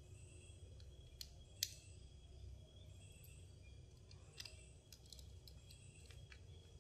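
Faint, scattered clicks and ticks of a small screwdriver and screw on the plastic battery tray of a Nikon D810 battery grip. One sharper click comes about a second and a half in, and a run of light ticks comes near the end.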